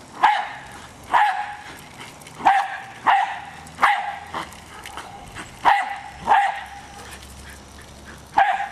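Jack Russell terrier barking at a remote-controlled toy car it is attacking: about eight sharp, single barks at uneven intervals.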